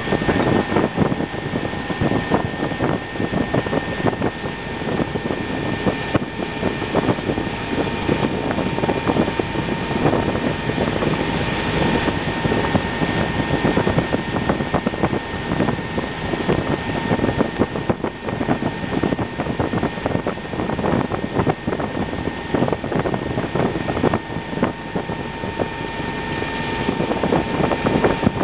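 Motorboat running at towing speed: a steady rush of engine and churning water, with a faint steady whine in it and wind buffeting the microphone.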